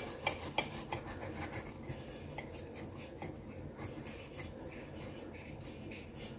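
A knife sawing back and forth through a pan-browned tortilla burrito on a plate: a soft scraping rasp with light clicks, the clicks sharpest in the first second.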